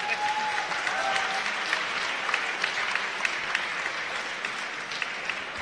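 Large arena crowd applauding, a dense steady clatter of many hands that slowly eases off toward the end, with a short held tone over it in the first second or so.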